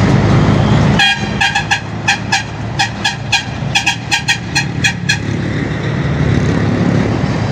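A vehicle horn tooting in a quick run of about fifteen short beeps, starting about a second in and stopping near five seconds, over passing traffic. Before the beeps begin, a Scania 113 truck's diesel engine rumbles past.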